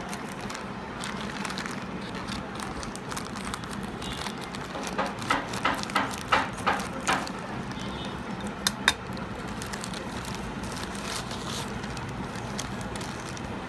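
A quick run of about eight crackling clicks over steady background noise, followed a moment later by two sharp clicks close together.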